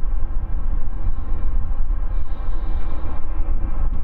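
Steady low rumble of the aircraft tug towing a Boeing 747-8F freighter whose engines are not yet running, with wind buffeting the microphone.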